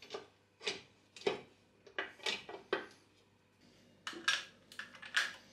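Light metallic clinks and taps of hand tools and bolts against an A-Series engine's covers as they are fitted and bolted up: scattered single clinks, a pause, then a quick cluster about four seconds in.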